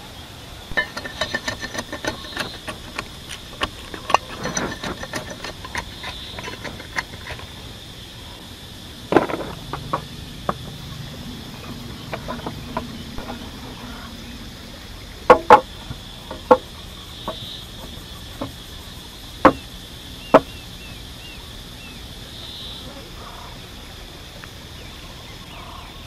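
Wood knocking and clattering as the heavy planks of a hand-built wooden lever press for squeezing sugarcane are handled and fitted together: many light taps for the first several seconds, then a few sharp, loud knocks, the loudest a pair about halfway through and two more a little later.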